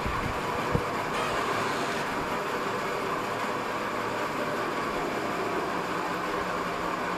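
Steady rushing room noise picked up by the camera's microphone, with a single thump a little under a second in.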